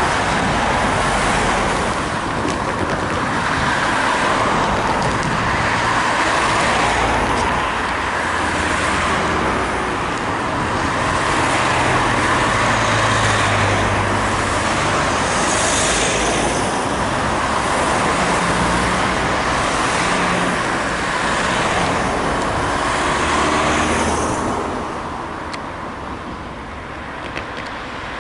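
Steady road traffic: cars and their tyres passing, with no crossing bell. It eases off about 24 seconds in.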